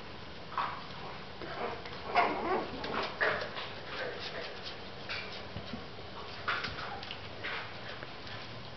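Young puppies giving short, high-pitched whining cries, several in quick succession with the loudest about two seconds in, then more spaced out and fainter.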